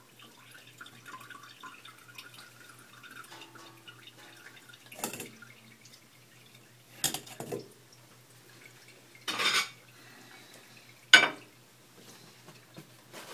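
Stainless steel mesh strainer knocking and clinking against the stainless bowl it rests in as it is handled, lifted and set back down: about five separate metal knocks, the loudest near the end.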